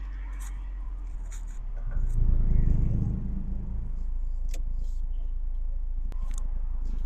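1991 Honda Accord's four-cylinder engine running while the car is driven, swelling louder for a couple of seconds under acceleration about two seconds in, then settling back to a steady hum.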